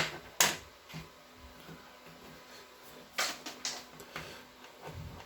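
Sharp clicks and snaps of a cable stripper working the outer jacket of a Cat 6 network cable: two loud clicks at the start, two more about three seconds in, with fainter handling sounds between.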